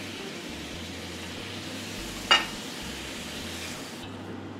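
Chicken pieces and vegetables in sauce sizzling in a wok as they are stirred, with one sharp clink of the spatula against the wok a little over two seconds in. The sizzling drops away near the end.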